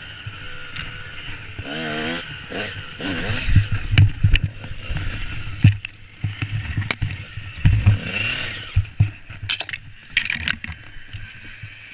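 Dirt bike engine revving, then a crash: a run of heavy thumps and scrapes as the bike and rider go down in dry leaves, with a few sharp clicks near the end.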